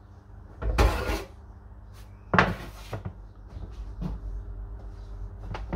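Metal baking tray knocking and clattering on a wooden worktop as it is handled: two loud knocks about one and two and a half seconds in, then lighter taps and rubbing.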